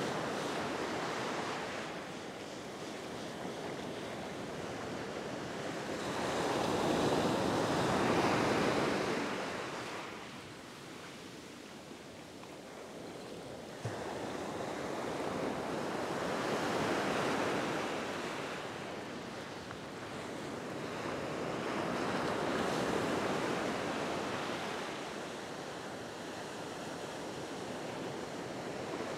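Ocean surf breaking and washing up the beach, swelling and fading every several seconds, with wind buffeting the microphone. A single short click about fourteen seconds in.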